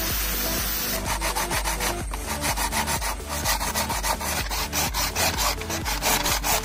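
Sandpaper rubbed back and forth by hand over a coconut shell in rapid strokes, starting about a second in. Near the end a hacksaw cuts into the coconut with similar back-and-forth strokes.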